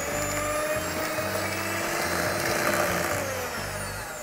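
Electric hand mixer whisking cream into raspberry icing glaze in a glass bowl: the motor runs with a steady whine, then slows and fades near the end.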